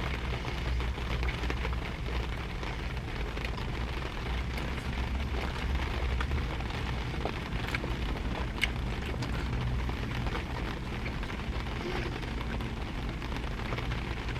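Rain falling on a car's roof and windows, heard from inside the cabin as a steady hiss with scattered small drop ticks, over a steady low hum.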